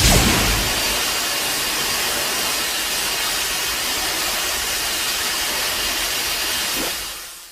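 Mecha monster sound effect: a steady rushing hiss like a jet blast or a steam release, opening with a quick falling sweep and fading out near the end.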